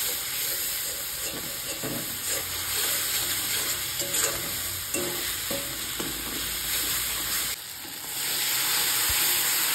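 Spice masala paste of onion, ginger, garlic and tomato sizzling in oil in a kadai while a metal spatula stirs and scrapes across the pan bottom. The sizzle drops out briefly about seven and a half seconds in, then comes back a little louder.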